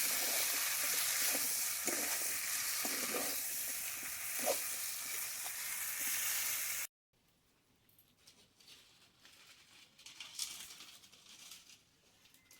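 Duck curry sizzling in hot oil in a pan while being stirred, with short scrapes and knocks of the stirring spoon. The sizzle cuts off suddenly about seven seconds in, leaving only faint scattered sounds.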